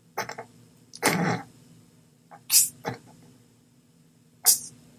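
A person's short non-word vocal sounds: a brief voiced grunt about a second in, and sharp breathy hisses about two and a half and four and a half seconds in.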